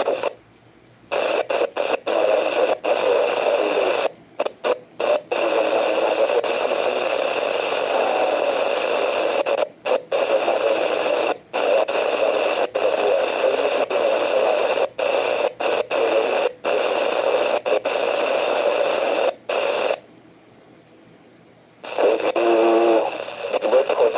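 Static hiss from an amateur radio transceiver's speaker, cutting out abruptly many times and coming back. There is a longer gap of about two seconds near the end.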